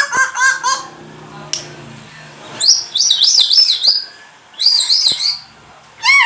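Grey parrot making a quick run of short chirps, then two bursts of rapid high warbling whistles, and a downward-sliding whistle near the end.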